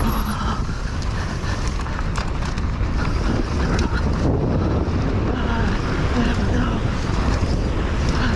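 Wind rushing over the microphone and the tyres of a downhill mountain bike running fast over a dry, rocky dirt track, with scattered clatters as the bike rattles over stones while it picks up speed.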